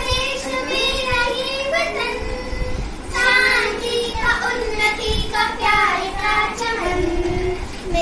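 Young girls singing a song, with long held notes.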